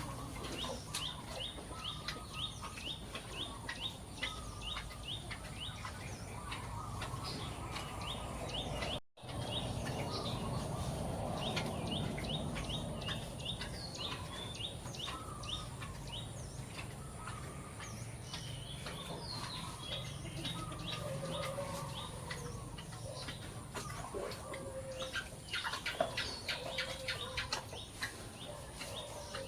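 Birds chirping in quick repeated runs, with chickens clucking, over a steady farmyard background. The sound cuts out abruptly for a moment about nine seconds in.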